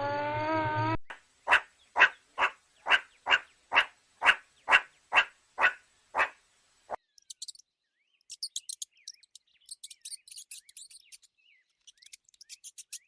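Animal calls from three clips in a row. First the end of a rising, whining call, then a series of about eleven short calls, about two a second, then rapid, high-pitched chirping clicks.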